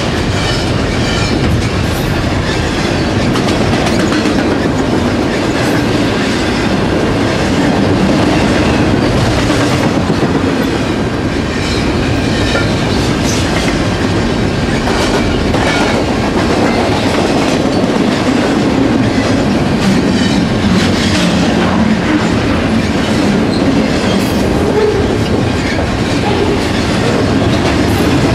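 Double-stack intermodal container well cars of a freight train rolling past close by: a loud, steady rumble of steel wheels on rail with clickety-clack over the joints and intermittent high-pitched squeaks.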